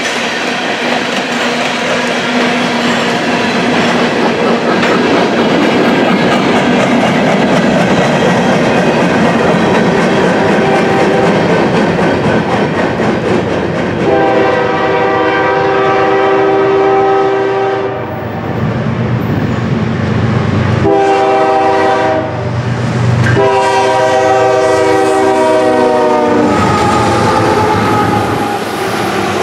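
Freight train passing on jointed rail, with the steady rumble and clack of covered hopper cars. About halfway through, an oncoming diesel locomotive's multi-chime air horn sounds a long blast, a short one and another long one, and the horn falls in pitch near the end as the locomotive passes.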